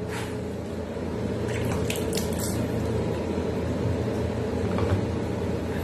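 Tap water running steadily into a sink, with a few brief splashes as a face is rinsed with it.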